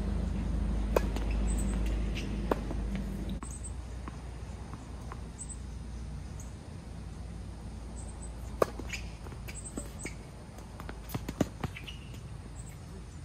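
Tennis ball being struck and bouncing during play: a few sharp, widely spaced pops, the loudest about eight and a half seconds in, then a quick run of smaller knocks near the end. A low rumble fades out about three seconds in.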